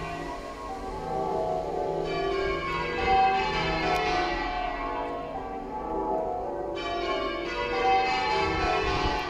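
The bells of St Peter's Church, Tiverton, are rung full circle in English change ringing. They strike one after another in a steady, unbroken succession of overlapping ringing tones. The bells are half-muffled, as rung in mourning.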